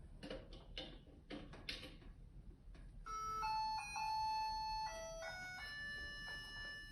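A few faint clicks, then a microwave's electronic beeper playing a short melody of simple held tones that step from note to note.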